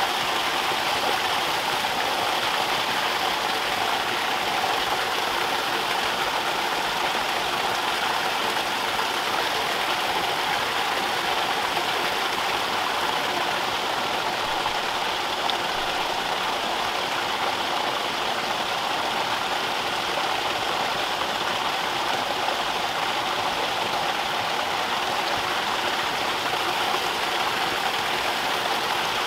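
Water running steadily and splashing into a small pond: an even rush that does not change.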